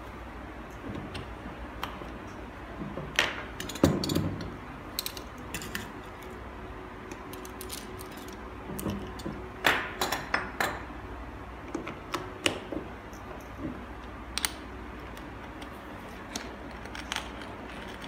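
Scattered small clinks and rattles as a stainless-steel manual coffee grinder is handled and its hopper filled with coffee beans, the busiest stretches about 3 to 4 seconds in and again about 10 seconds in.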